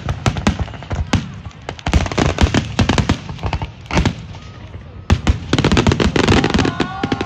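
Fireworks going off in a series of sharp bangs and cracks. About five seconds in comes a dense, rapid string of crackling that lasts around two seconds.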